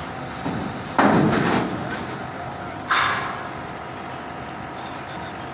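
Heavy crane machinery running steadily while a steel counterweight is lifted on wire-rope slings. Two loud sudden noises come about one and three seconds in, the second fading quickly.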